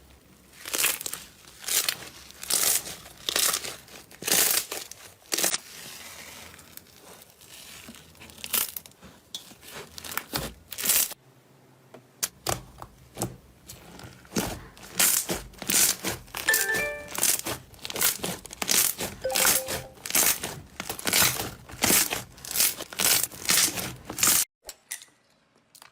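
Slime being squeezed and pressed by hand, crackling and popping in short repeated bursts about one to two a second, then stopping suddenly near the end.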